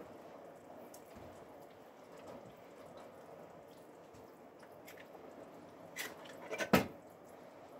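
Fabric being stirred in a large enamel stockpot of water on a gas stove: a steady low hiss with faint liquid sounds. A few light clicks come near the end, then one sharp knock against the pot.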